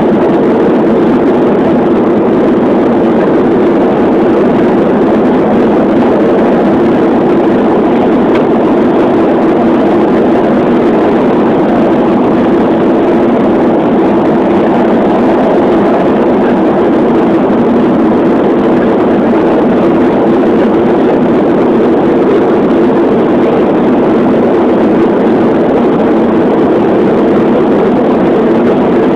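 Steady, loud drone of engines and rushing air inside an airliner cabin in flight, with an even hum in the lower middle of the range.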